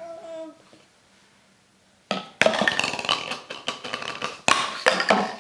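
Plastic stacking-pyramid rings clattering and clacking together as they are handled, a dense run of knocks that starts about two seconds in after a short lull.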